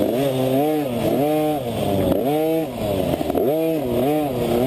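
KTM 50 two-stroke pee-wee dirt bike engine revving up and dropping back about five times as the throttle is opened and closed on a twisty trail.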